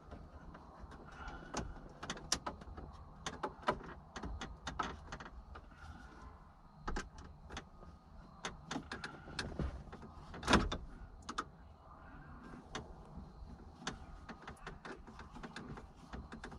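Irregular clicks, taps and knocks of hand work on a car's plastic interior trim: screws and plastic console pieces being handled and fitted while installing a 12-volt power socket. The loudest knock comes about ten and a half seconds in.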